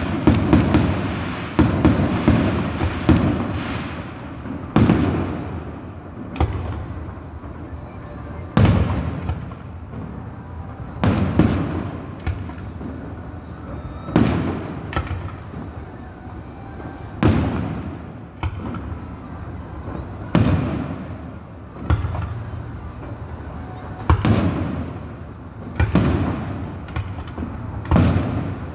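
Fireworks shells bursting at a distance: a rapid cluster of sharp booms in the first few seconds, then single booms every second or two, each trailing off in a rolling echo.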